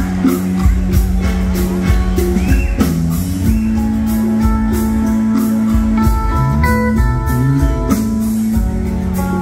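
Live rock band playing through a stage sound system: electric and acoustic guitars over a drum kit, with held notes, a bending guitar line and a steady beat.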